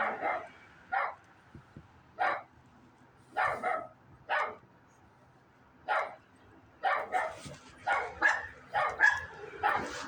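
Dogs barking inside a house: single barks a second or so apart, then a quicker run of barks in the last few seconds.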